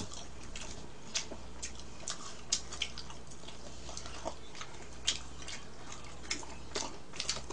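Eating sounds: metal chopsticks clicking against bowls and small chewing and mouth noises as jajangmyeon and fried sweet-and-sour pork are eaten, coming as scattered irregular clicks over a faint steady low hum.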